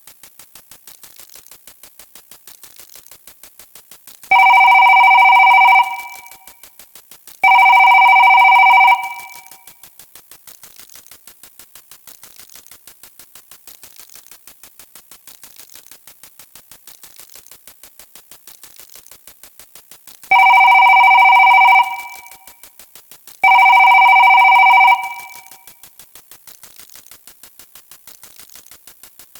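Telephone-style ring sound effect: two rings about a second and a half long, then the same pair again some eleven seconds later, each ring a steady two-tone buzz that dies away quickly. Rapid, regular clicks tick on quietly throughout.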